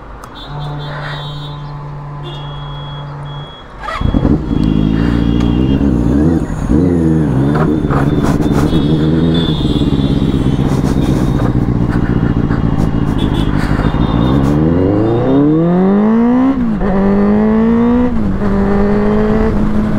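Benelli sport motorcycle's engine starting about four seconds in, after a steady low hum. It runs unevenly at low revs while pulling away, then revs rise twice with a gear change between and settle into a steady cruise.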